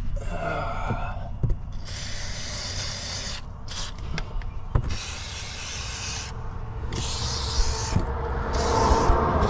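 Aerosol can of rust-proofing coating spraying through its straw nozzle onto a rusty steel suspension arm, in about five short hissing bursts with pauses between them.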